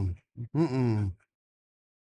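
A man's voice making drawn-out groans that fall in pitch, one trailing off just after the start and a second about half a second in, voiced in a sulky, grudging tone. It stops a little after a second in.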